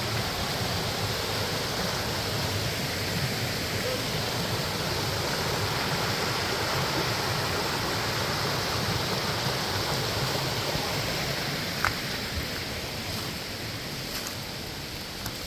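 Waterfall: a steady rush of falling water that eases slightly over the last few seconds, with one brief click about twelve seconds in.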